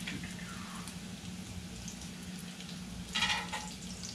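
Bacon frying in its rendered fat in a hot cast-iron Dutch oven, a steady sizzle with a low hum beneath. A short, louder burst comes about three seconds in.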